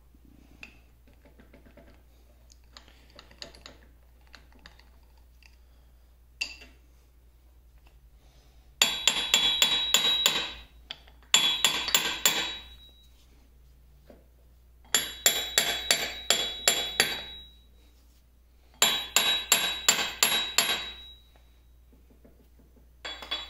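Hammer rapping on the ball crank assembly of a 1950 LeBlond Regal lathe, in four quick bursts of about eight to ten ringing metal strikes each, some five a second. Faint clicks of the parts being handled come before the hammering.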